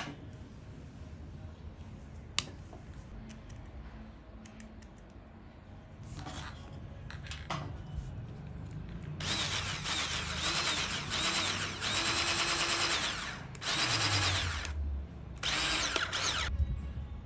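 A power tool's small electric motor runs in three bursts, its whine rising and falling in pitch. Before that come several seconds of light handling with a few sharp clicks.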